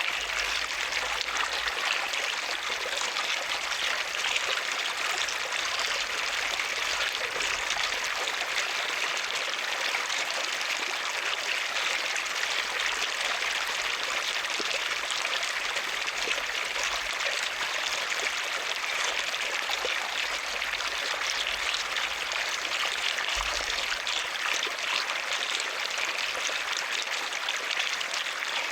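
Water running steadily with a continuous trickling hiss, like water flowing into or over a swimming pool.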